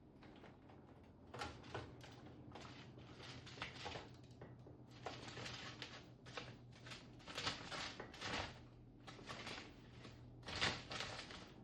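Pet chipmunk scratching and rustling about as it looks for a spot to cache its food: a string of short, irregular scratchy rustles, some louder than others, the loudest near the end.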